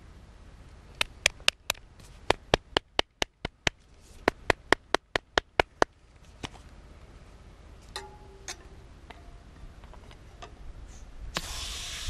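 An aerosol tyre inflate-and-repair can is shaken, its mixing ball clicking sharply in three quick bursts of about four or five clicks a second. A few light clicks and scrapes follow as the nozzle is fitted to the bicycle tyre valve. Near the end a loud hiss starts as the can discharges into the tyre.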